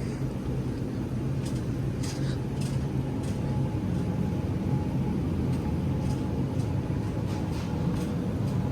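Steady low mechanical hum of a supermarket's refrigerated frozen-food cases and ventilation, with a faint constant tone and scattered light clicks.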